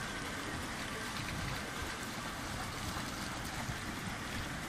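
Steady hiss of water running and trickling through a stepped fountain's shallow pools, with an irregular low rumble underneath.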